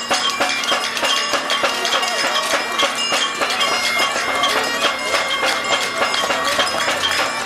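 Highland bagpipes playing a tune over their steady drone, with crowd chatter beneath.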